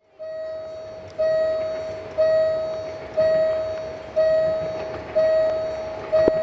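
Railway level-crossing warning bell ringing about once a second, each stroke a single clear tone that fades before the next, warning that a train is approaching.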